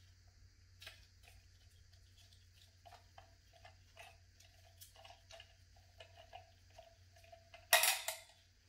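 Small irregular clicks and light metallic taps from a brass clock movement and its drum case being handled, each tap ringing briefly. A louder scraping clatter of metal comes near the end.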